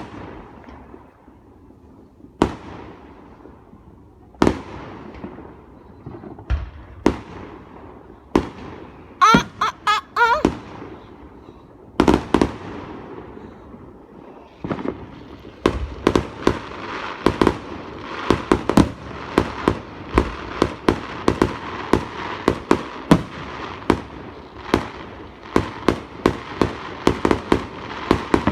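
Fireworks going off. At first they are scattered single bangs a second or two apart, with a short dense cluster about a third of the way in. Then, a little past halfway, comes a rapid barrage of many bangs over continuous crackling.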